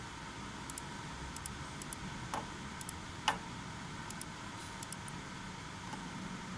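Faint steady background hum with scattered light ticks and two sharper clicks a little past two and three seconds in.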